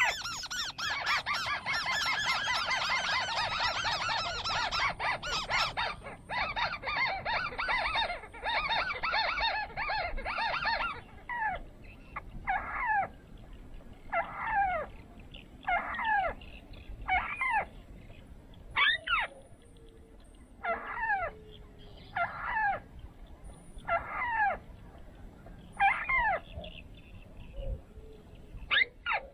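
Shrike calls. About ten seconds of harsh, rapid chattering, then a series of single calls, each falling steeply in pitch, about one every one and a half to two seconds.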